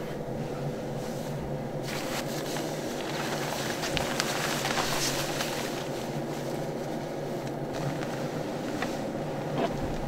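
Fabric and gear rustling and being handled inside a car, with small clicks, over a steady low hum. The rustling grows louder about two seconds in.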